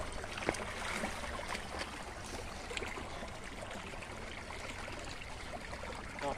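Shallow water trickling and running in a narrow weedy drainage ditch, with a few light knocks, the clearest about half a second in.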